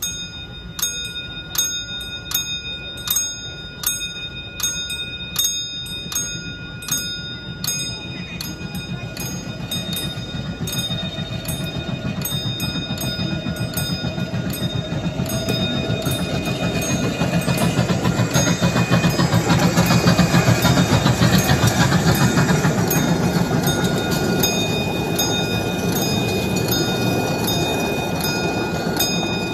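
Railroad crossing bell ringing with steady, evenly spaced strikes. From about ten seconds in, a miniature train rumbles up and passes over the crossing, loudest around twenty seconds in, while the bell keeps ringing.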